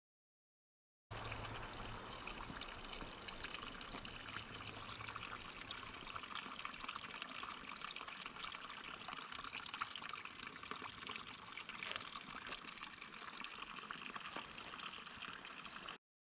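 Running water, a steady trickling and splashing, that cuts in sharply about a second in and cuts off just before the end.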